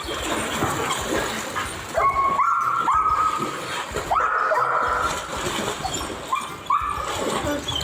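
A dog whining in a run of about seven high cries from about two seconds in, each rising quickly and then held briefly.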